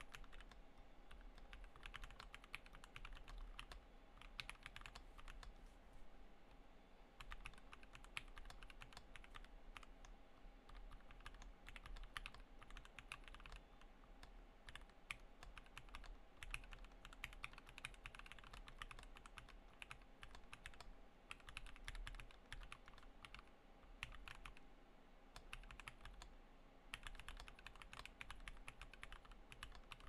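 Typing on a Mini Ashen 40 mechanical keyboard with Gateron Yellow linear switches lubed with Krytox 205, a 1.5 mm ABS plate, an acrylic case and Mito DCD Pegaso keycaps. A steady, fast run of keystrokes with a few short pauses.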